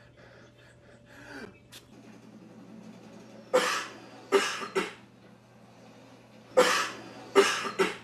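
Six loud faked sneezes in two runs of three, the second run about three seconds after the first. Each is a sharp burst of breathy hiss, sprayed from a spray bottle to mimic the spray of a real sneeze, as in the sneezing prank.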